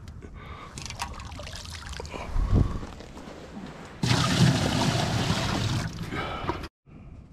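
Water pouring and splashing from a plastic bucket for about two seconds, starting about four seconds in. Before it come a few soft thumps and rattles of gear being handled, and the sound cuts off suddenly near the end.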